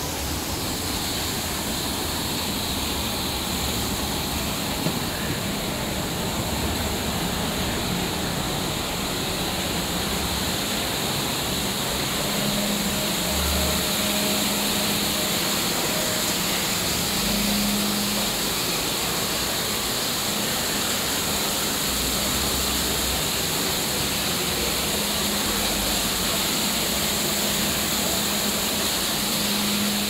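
Man-made waterfall pouring into a lake: a steady rushing of falling water.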